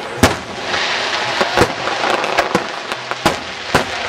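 Fireworks shells bursting in the air: a run of about five sharp bangs a second or less apart, with fainter pops and a steady hiss between them.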